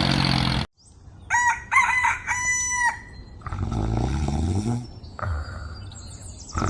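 A rooster crowing: a few short rising notes, then one long held note, starting about a second in, right after a steady engine hum cuts off abruptly. Lower rumbling sounds with falling pitch follow.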